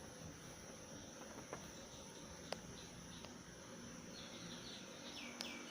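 Faint steady insect drone, with a run of short repeated chirps in the last second and a half and a few light clicks.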